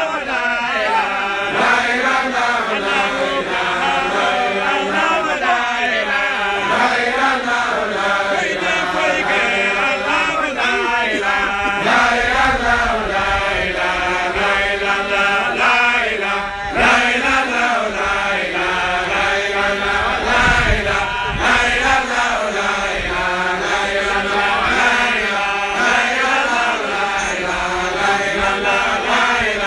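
Several voices chanting a religious recitation together without a break, the names of God and of the Prophet Muhammad sung in a repeating Islamic devotional chant.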